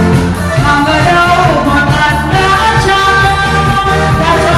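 Loud dance music with a singing voice over a repeating bass line.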